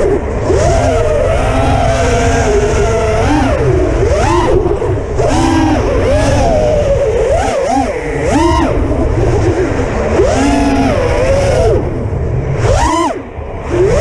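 6-inch FPV quadcopter's brushless motors whining in flight, the pitch swooping up and down with the throttle, over a steady wind rumble on the onboard camera's microphone. Near the end the motors drop off briefly, then surge back in a fast rising whine.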